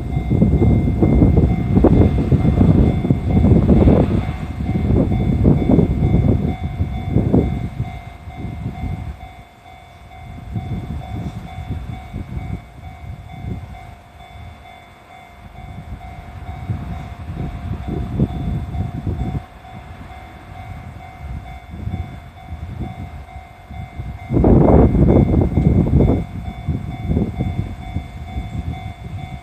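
A slow freight train's wagons rumbling and clattering over the rails through a level crossing, louder and softer in waves, with a sharp loud burst near the end. A steady ringing runs through it, typical of the crossing's warning bell.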